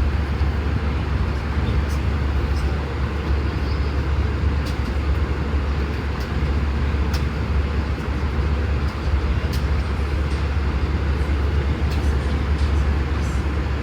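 Steady cabin noise of an Airbus A320 in cruise: a constant low rumble and rush of engine and airflow noise heard from inside the passenger cabin, with a few faint light clicks.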